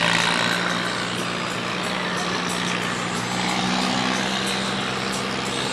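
Farm tractor engine running hard at steady revs under full load while pulling the weight sled down the track.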